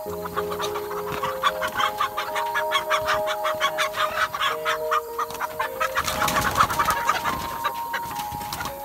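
A cage of young laying hens clucking and squawking in quick, overlapping calls as they are handled, over background music of long held notes. A louder rustling stretch comes about six seconds in.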